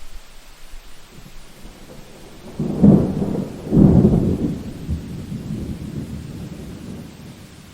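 A thunderstorm: steady rain hiss with a loud clap of thunder about two and a half seconds in, rumbling in two heavy peaks and then fading away.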